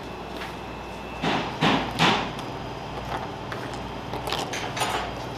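Kitchen handling sounds: a few short knocks and scrapes, the loudest three close together between about one and two seconds in, then a few lighter clicks, over a steady low hum.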